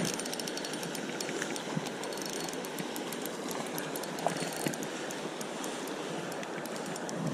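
Spinning reel being cranked close by, its gears giving a fast run of fine ticks, over the steady rush of a flowing stream.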